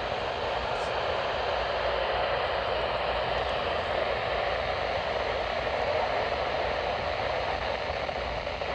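Steady hiss of radio static from a noisy weather-radio reception, an even rushing noise with no tones or clear voice.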